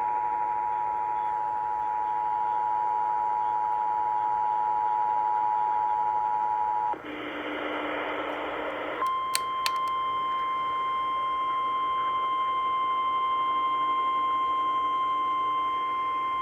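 Emergency Alert System two-tone attention signal, two steady tones sounding together, breaks off about seven seconds in. After a couple of seconds of radio hiss, a single steady NOAA Weather Radio warning alarm tone begins with a few sharp clicks and holds. This alarm is the signal that a warning is about to be read.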